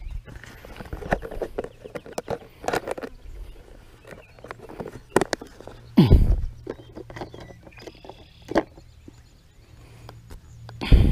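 Close handling noise: rustling, clicks and knocks as hands work with fishing gear and a bait jar right by the microphone, with a louder thump about six seconds in and another near the end.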